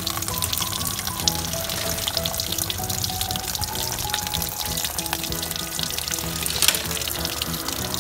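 Background music with a light melody over a steady stream of water pouring and splashing onto a plastic toy race track.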